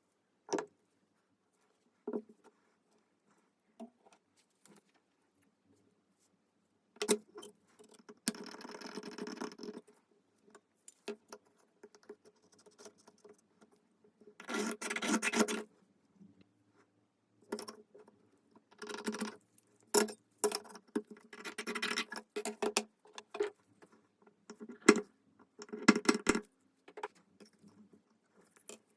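Small metal objects being handled: scattered clicks and clinks, with several short bursts of scraping and rattling, the longest about a second and a half.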